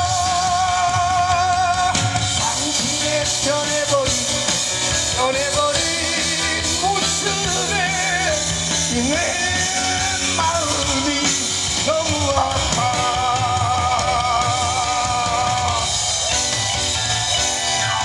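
Male singer singing into a microphone over backing music with drums, holding long notes with a wide vibrato, one near the start and another from about twelve to sixteen seconds in.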